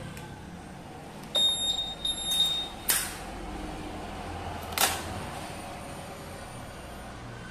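Honda Vario 150 smart-key system switching on: a high electronic beep about a second and a half in, then two sharp clicks about two seconds apart as the ignition knob is worked, over a faint low hum.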